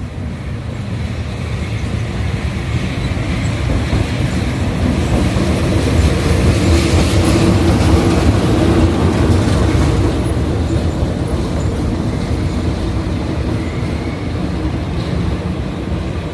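CC 206 diesel-electric locomotive hauling its train past: the engine drone and wheel noise build to a peak about halfway through and then fade away.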